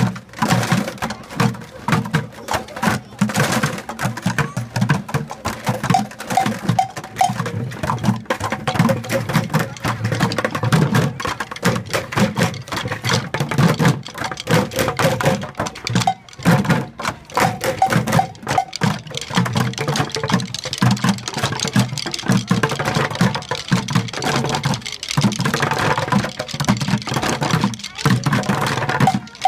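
Bucket drumming: a group of children beating drumsticks on upturned orange plastic five-gallon Home Depot buckets, a dense run of rhythmic hits from many players at once, breaking off briefly about halfway through.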